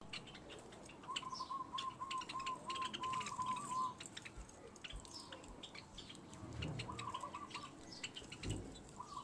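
Java sparrows chirping, a stream of short, high clicking calls. A lower, repeated warbling bird call joins in for about three seconds, then comes back briefly twice near the end.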